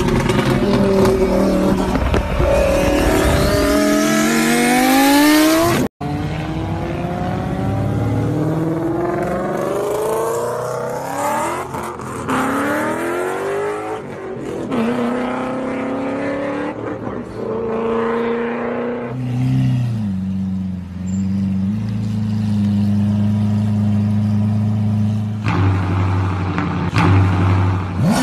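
Small electric RC car's motor and gears whining, the pitch sweeping up and falling back again and again as the throttle is worked. The sound cuts out for an instant about six seconds in, and there is a steadier, lower hum for several seconds near the end before the rising whines return.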